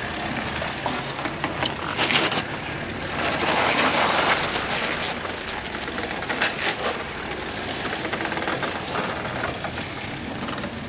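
Off-road vehicle moving slowly over a rocky trail: tyres crunching on rock and gravel with the engine running underneath. The sound swells about two seconds in and again around four seconds in, with scattered small knocks and clicks.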